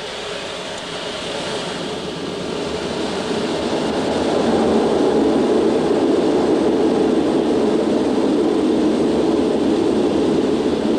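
Concorde's four Olympus 593 turbojets run up to takeoff power with reheat, heard from inside the flight deck as the aircraft starts its takeoff roll. The noise grows over the first four or five seconds, then holds loud and steady as the aircraft accelerates down the runway.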